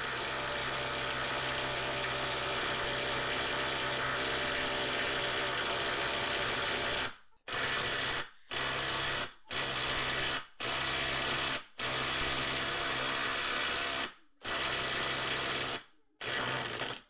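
Bosch Freak 18V impact driver hammering on a bolt without a break for about seven seconds, then in a string of short trigger bursts with brief pauses. It is working to break loose a fastener tightened to about 232 foot-pounds, which takes a lot of work.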